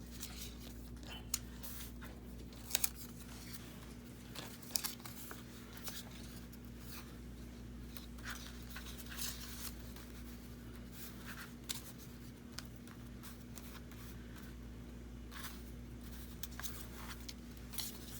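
Paper and card ephemera being handled: rustling and shuffling with several sharp clicks and taps, the loudest about three seconds in, over a steady low hum.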